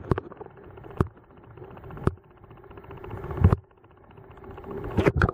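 Underwater sound picked up by a submerged camera: a steady low hum with scattered muffled knocks and bumps, the loudest a deep thump about three and a half seconds in.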